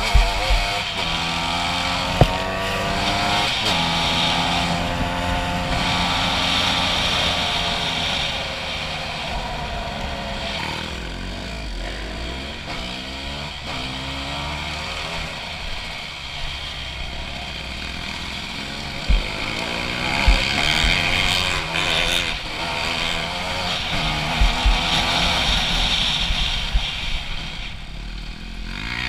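Honda CRF250 dirt bike's single-cylinder four-stroke engine through an HGS aftermarket exhaust, revving as it is ridden, its pitch rising and falling over and over with throttle and gear changes. A few short knocks come near the middle.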